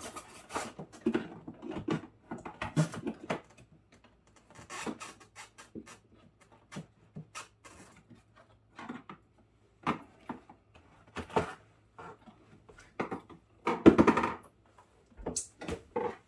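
Irregular clicks, knocks and scraping of plastic refrigerator parts being handled and pried loose during disassembly, with one louder scrape or rattle about three-quarters of the way through.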